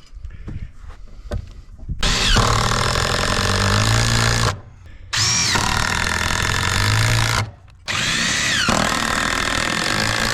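Handheld power tool run in three bursts of about two and a half seconds each, its motor pitch rising as it spins up and falling at the end of each, during framing repair of a mobile home wall; a few light knocks come before the first burst.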